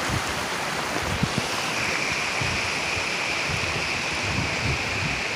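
Steady rush of a rocky mountain stream, with footsteps on a dirt trail and wind buffeting the microphone. A steady high-pitched hum joins about two seconds in.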